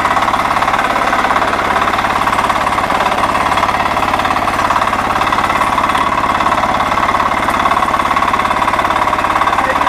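Walk-behind power tiller's 9 HP Kama single-cylinder diesel engine running steadily, with a fast, even clatter, as the tiller is driven along.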